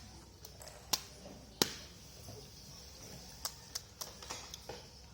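Several sharp, separate clicks and taps, about seven in all, the loudest a little over a second and a half in: a small hard plastic object being handled, as the Kinder Surprise egg's toy capsule is worked at to open it.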